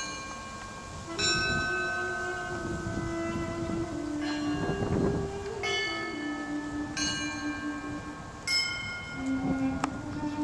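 Orthodox church bells struck about six times at uneven intervals, each stroke ringing on and overlapping the next. Under them a duduk holds long notes, stepping from one pitch to another.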